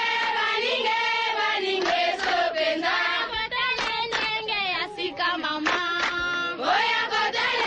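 Group chanting and singing over music, in an 'African tribal style' mix, with sharp percussive hits throughout.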